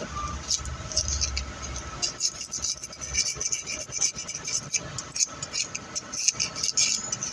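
Fine sandpaper rubbing against the copper commutator of a Subaru starter motor's armature to clean its contacts: quick, irregular scratchy strokes that come denser from about two seconds in.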